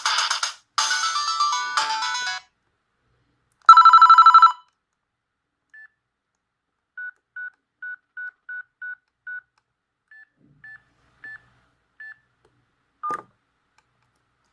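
Panasonic G60 mobile phone ringtones: the tail of one melody, a short run of falling notes, then a loud, fast warble between two pitches lasting under a second. After it come short single-pitched beeps, seven in quick succession and then a few more spaced out, and a click near the end.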